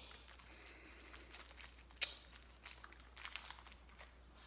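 Packaging being opened and handled: faint crinkling with scattered small clicks, the sharpest click about two seconds in.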